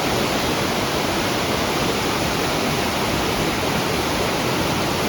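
Mountain stream running high and fast after heavy rain: a steady, loud rush of water.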